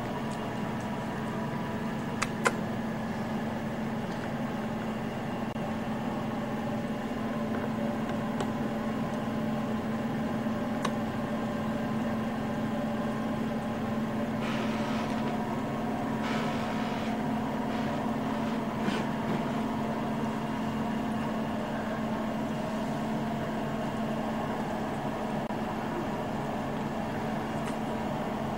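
Steady low mechanical hum, with a couple of faint clicks about two seconds in and brief rustling hiss about halfway through.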